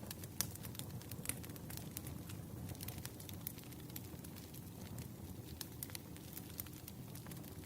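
Burning firewood crackling: irregular sharp pops over a low steady rumble, the loudest pop about half a second in.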